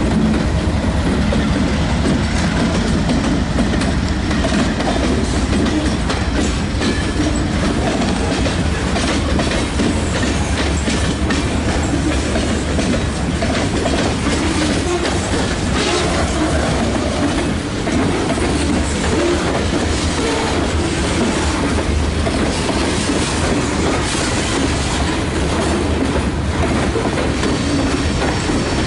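Norfolk Southern freight train's hopper and gondola cars rolling past close by: a steady loud rumble of steel wheels on rail, with a continuous clickety-clack of wheels over rail joints.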